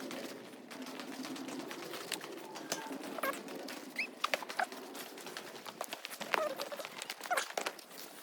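Birds chirping in short, scattered calls, with occasional sharp clicks.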